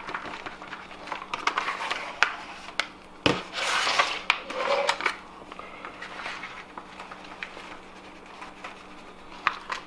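Kitchen handling sounds while fish breading mix is prepared: a bag of breading mix rustling, with scattered clicks and clinks of dishes. The busiest handling comes about a second in and again from about three to five seconds in.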